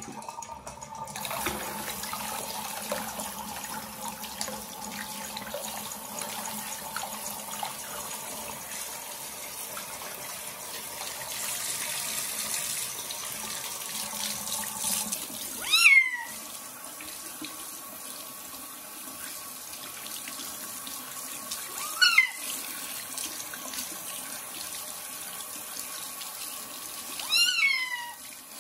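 Tap water running steadily into a bathroom sink as a kitten is rinsed under it. The kitten gives three loud meows that fall in pitch: about halfway through, again some six seconds later, and a longer one near the end.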